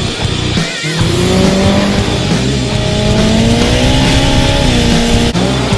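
Race car engine accelerating hard, its pitch climbing steadily for about two seconds before dropping back. A short tire squeal comes near the start.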